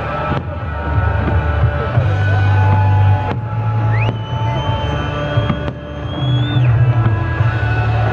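Music with a heavy, steady bass line and a high held tone that glides up about halfway through and drops away a few seconds later. A few sharp bangs from firework bursts cut through it.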